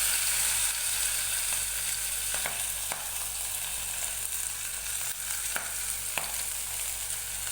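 Okra slices coated in gram flour (besan), turmeric and salt, sizzling in hot oil in a kadai: a steady, loud frying hiss with a few faint ticks.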